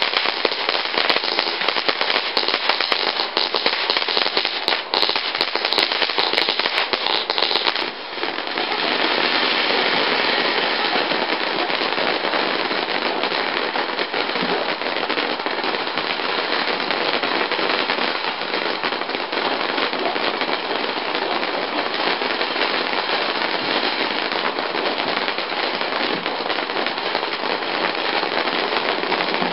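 Sparklers burning with a dense, continuous fizzing crackle, dipping briefly about eight seconds in.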